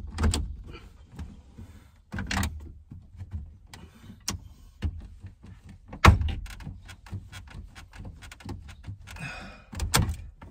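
Factory radio in a 1996 Ford F-250 dash being wiggled and yanked out on its removal keys: irregular plastic-and-metal knocks and clunks, with the hardest thump about six seconds in and a brief scrape near the end.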